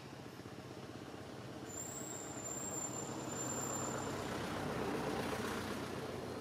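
A motor vehicle's engine rumbling past, swelling gradually to its loudest about five seconds in and then easing off. A thin, high, steady squeal sounds for about two seconds, starting near two seconds in.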